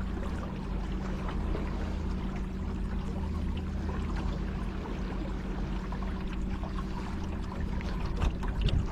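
Battery-powered electric motor on a kayak running steadily, a low even hum, with water splashing and trickling along the hull.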